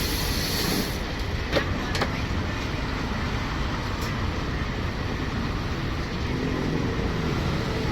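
Steady street background noise, with two short clicks about one and a half and two seconds in.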